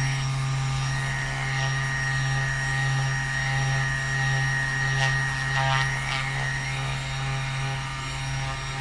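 Handheld electric massage tool running with a steady low drone.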